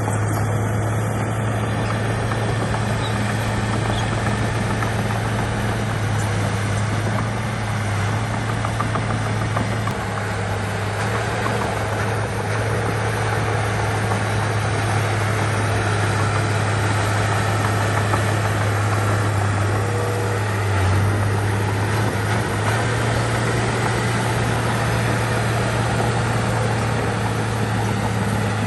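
Heavy earthmoving machine's diesel engine running steadily with an unbroken low drone.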